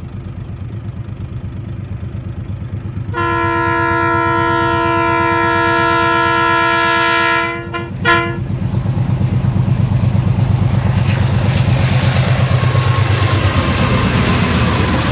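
Diesel locomotive approaching and passing close by: a pulsing engine rumble throughout, a long horn blast sounding several notes at once from about three seconds in to nearly eight, a short toot right after, then the engine and wheel noise grow louder as it goes by.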